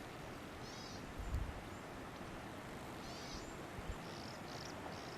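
Quiet outdoor ambience: a steady hiss with a few short, high chirping calls, one about a second in and another around three seconds in.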